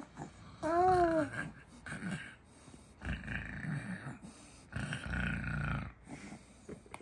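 A young baby coos once, a short rising-and-falling sound about a second in, then makes two longer breathy vocal sounds.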